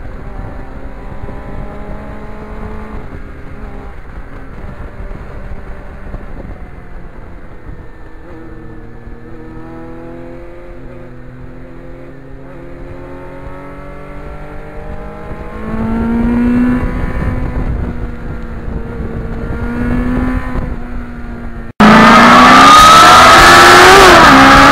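Onboard sound of a Kawasaki Ninja motorcycle engine at road speed, its note rising and falling with throttle and gear changes. About 22 seconds in it cuts suddenly to loud music with drums.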